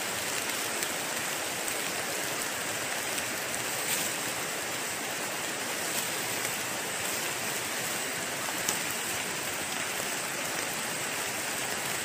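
Steady rain falling on dense forest foliage, an even hiss with a few faint drop-like taps.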